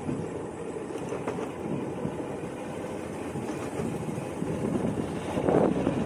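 Motorcycle running while being ridden: a steady engine and road rumble, growing louder near the end.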